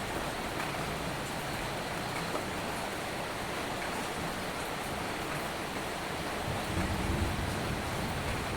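Soft, steady rain falling, an even hiss with no breaks. A low rumble swells a little near the end.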